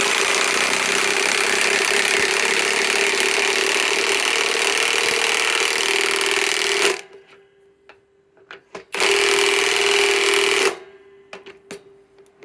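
High-torque impact wrench hammering a big 6-inch lag screw into wood. It runs for about seven seconds, stops, then makes a second, shorter run of about two seconds.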